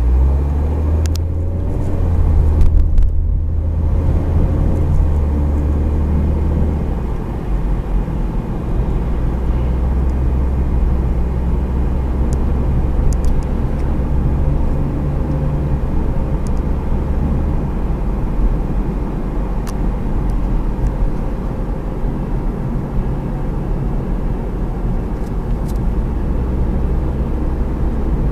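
Car running with a steady low drone from a bearing making an abnormal noise, the sign of a worn or failing bearing.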